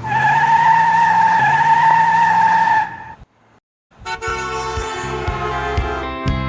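A vehicle horn sounding one steady, unbroken note for about three seconds, then cutting off. About a second later, music with a regular beat starts.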